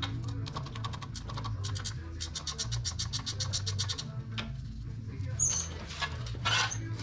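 Ratchet wrench clicking in quick runs as nuts are turned off, then two short metal scrapes near the end. Background music plays underneath.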